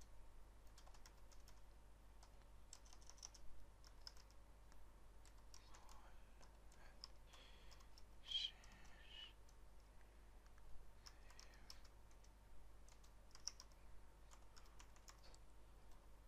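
Faint computer keyboard typing: scattered keystrokes in short runs with pauses between.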